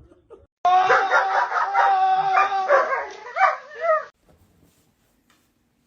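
A dog howling: one long, wavering vocal call that starts and stops abruptly, lasting about three and a half seconds.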